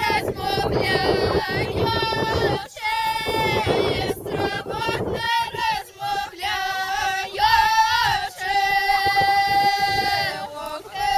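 Girls' and women's folk ensemble singing a traditional village song without instruments. Their voices are high and bright, and they hold long notes, the longest in the second half.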